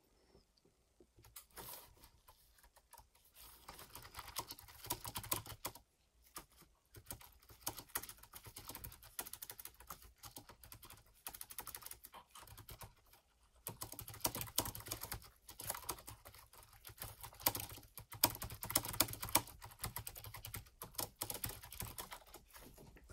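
Typing on a Lenovo laptop keyboard: fast runs of key clicks that stop briefly a few times.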